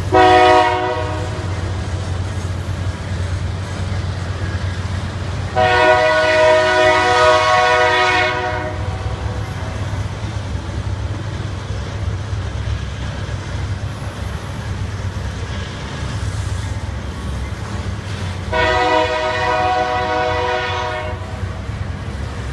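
Diesel freight locomotive's multi-tone horn sounding three times: a short blast at the start, a long blast of about three seconds around six seconds in, and another of about two and a half seconds near nineteen seconds. Between and under the blasts, the steady low rumble of the freight train's hopper wagons rolling past.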